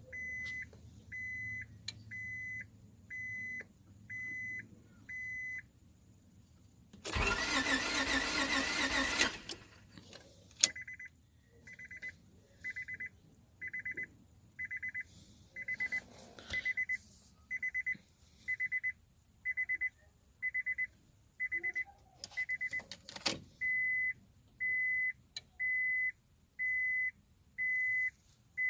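Car warning chime beeping steadily, about three beeps every two seconds, in a car that won't start after a new fuel pump was fitted. About seven seconds in, the chime breaks off for a loud two-second burst of mechanical noise, then starts again.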